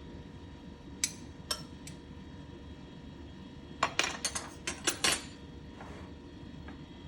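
Cutlery clinking against a dish: two single clinks about a second in, then a quick run of clinks about four to five seconds in.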